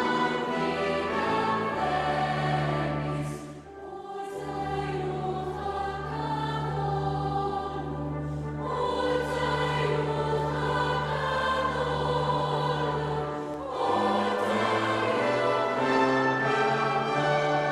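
A choir singing a Christmas carol with orchestral accompaniment. The music drops softer about four seconds in and swells back to full about fourteen seconds in.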